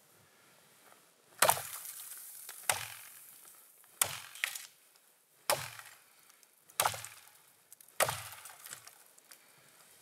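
Six sharp cracks of dry wood, evenly spaced a little over a second apart, each with a short splintering tail.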